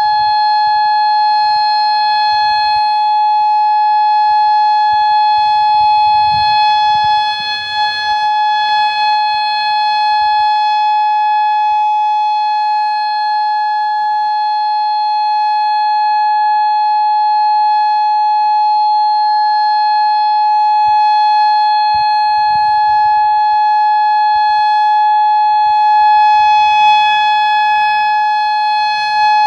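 Federal Signal Modulator (MOD8032B) electronic warning siren sounding one steady, unbroken tone during its monthly test, with no rise or fall in pitch.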